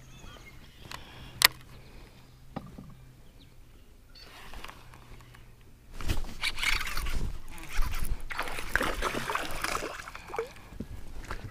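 A hooked largemouth bass splashing and thrashing at the water's surface as it is reeled in to the boat. A few sharp clicks come first, then about four seconds of loud splashing starting about halfway through.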